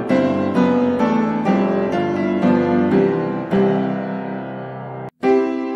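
Background piano music: slow notes struck about twice a second, each ringing and fading. It breaks off for an instant near the end, then starts again.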